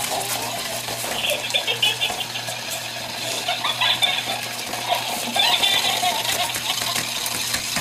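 Six-week-old French bulldog puppies scuffling and playing over a toy on paper sheets, with paper rustling and short high-pitched squeaks about a second and a half in, around four seconds in, and again about five and a half seconds in.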